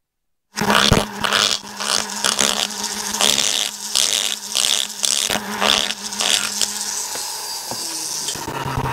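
Pencil die grinder running with a steady whine, its bit grinding metal in strokes about twice a second as it blends a port in a 1972 Yamaha AT-2 two-stroke cylinder. The sound cuts in suddenly after a moment of dead silence, and the grinding stops about seven seconds in, leaving a fainter hiss.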